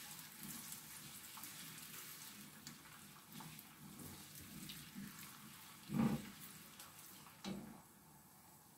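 Chopped onions frying softly in palm oil in a nonstick pan, a faint crackling sizzle with the scrape of a silicone spatula stirring through them. Two soft thumps come about six and seven and a half seconds in, after which the stirring stops and the sizzle gets quieter.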